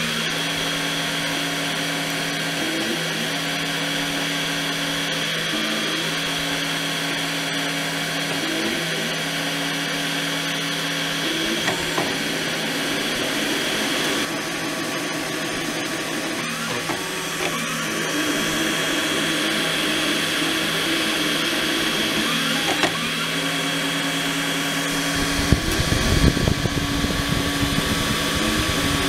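XYZprinting da Vinci Mini Maker 3D printer printing: its stepper motors whine in steady low tones that jump to a new pitch every second or two as the print head moves, over a steady high tone. About 25 seconds in, a low muffled rumble joins as air from the cooling fan on the extruder mount hits the microphone.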